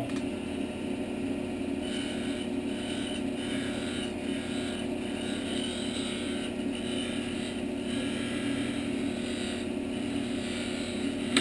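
Small wood lathe running steadily with a hum, while a turning tool makes light cuts on a small wooden spindle; the cutting hiss comes and goes every second or less as the tool is worked along the piece.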